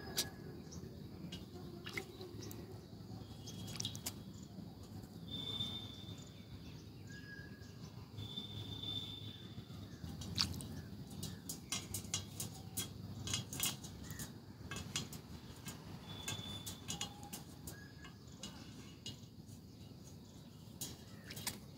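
Pet parrot giving a few short, high chirps now and then amid frequent small clicks and splashes as it bathes in water.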